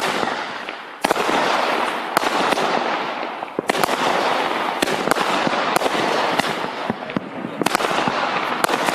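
Firestorm 134-shot single-ignition firework cake firing: about a dozen sharp reports over nine seconds, with a dense crackling hiss between them.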